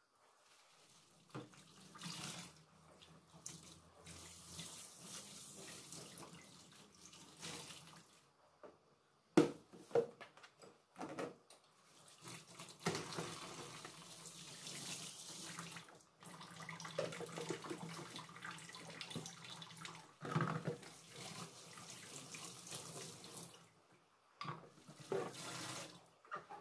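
Kitchen tap running into a stainless steel sink in spells as dishes are rinsed under it, with a few sharp knocks of dishes about ten seconds in.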